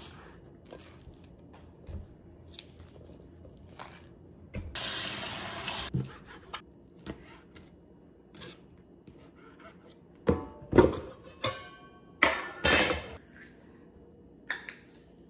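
Kitchen sounds: a tap runs for about a second, then a few sharp knocks and clatters of dishes and utensils, one of them ringing briefly.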